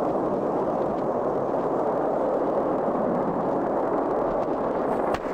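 Steady rushing rumble from the Delta II rocket explosion, as the cloud of burning debris rains down.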